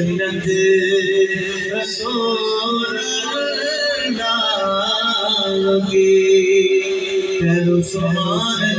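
A man singing a naat, an Urdu devotional poem, unaccompanied into a microphone and heard through loudspeakers, drawing out long held notes that bend and turn.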